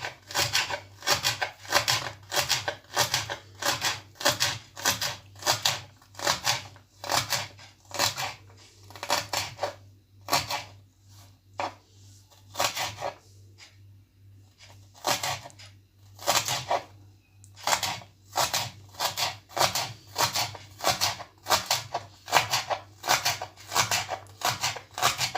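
Kitchen knife chopping vegetables on a cutting board, even strokes about two a second, which thin out for a few seconds about halfway through.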